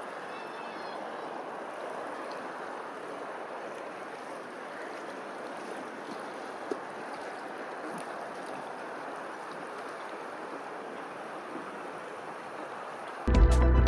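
Steady rippling and lapping of open water. Loud music cuts in abruptly near the end.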